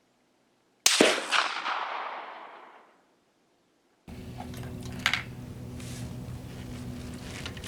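A single rifle shot from a Swiss K31 straight-pull rifle, a sharp crack about a second in that rings out and fades over about two seconds. A few light clicks follow, and another sharp crack comes right at the end.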